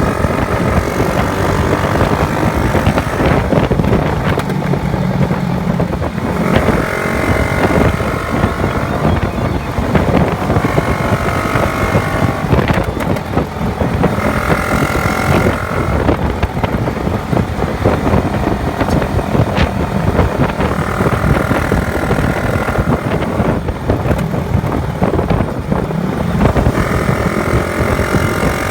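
Honda Wave 110's small single-cylinder four-stroke engine running at highway speed under wind and road noise, its pitched note swelling every few seconds as the rider holds the throttle.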